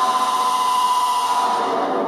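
Homemade 555-timer polyphonic keyboard synth played through a filter, LFO and echo, giving a buzzy held tone rich in overtones whose pitch sinks slightly.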